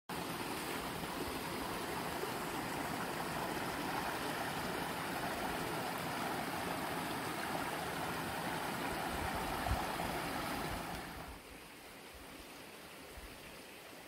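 Mountain stream rushing over a rocky bed, a steady rush of water. About eleven seconds in it drops away to a much quieter background hiss.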